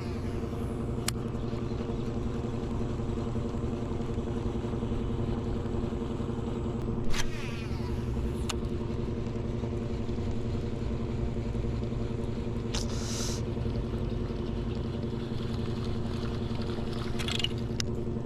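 A boat's motor running steadily at an even speed, with a few sharp clicks and a brief hiss about two-thirds of the way through.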